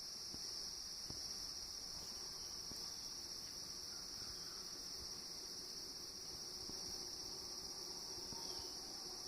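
Chorus of crickets: a steady, high-pitched, unbroken trill.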